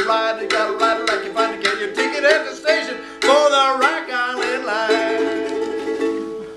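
Harmonica played in a neck rack over a strummed ukulele, with a few bent, wailing harmonica notes in the middle; the last chord rings and fades away at the end of the tune.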